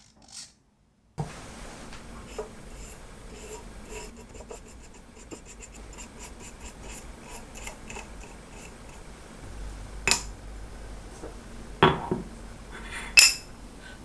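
Small metal-on-metal workshop sounds: a steel scriber scratching through blue layout fluid on a metal bar, heard as light scratchy ticks. In the last few seconds there are three sharp clinks and knocks as metal blocks are set down on a granite surface plate.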